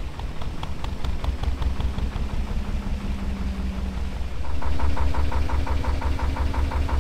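Narrowboat's inboard diesel engine running at slow speed with a steady low beat. About four and a half seconds in it grows louder, with a faster, sharper knock.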